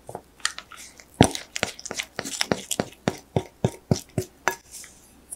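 Silicone spatula scraping thick cake batter out of a glass mixing bowl into a paper-lined cake tin: a quick run of short taps and clicks, about four a second, the loudest about a second in, stopping shortly before the end.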